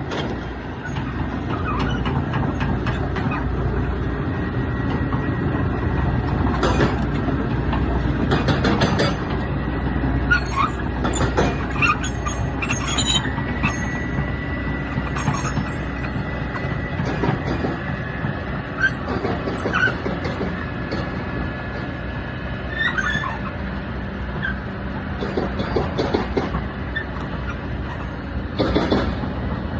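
Excavator working: a heavy diesel engine running with a low rumble, irregular metallic clanks and knocks, and a thin squeal partway through.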